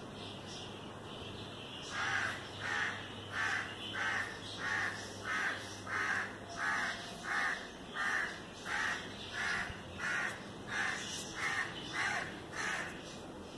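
A crow cawing over and over in a steady rhythm, about three caws every two seconds. It starts about two seconds in and goes on until near the end.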